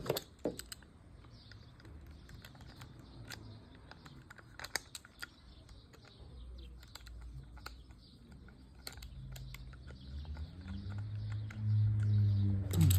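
Scattered light clicks and taps of fishing reel parts being handled, with a low hum building over the last few seconds.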